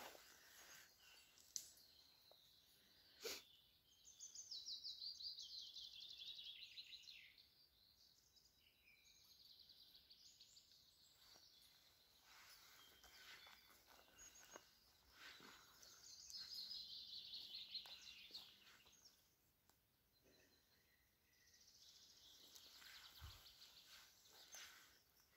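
A songbird singing three times, each phrase a quick series of high notes falling in pitch over about three seconds, faint against quiet woodland background.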